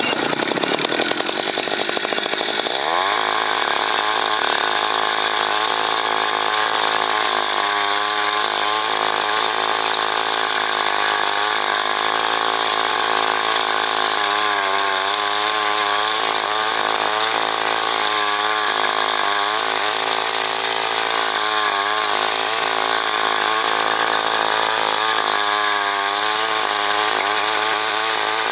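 The small engine of a powered post-hole auger revs up over the first few seconds. It then runs steadily under load as it bores a hole in the ground, its pitch wavering slightly.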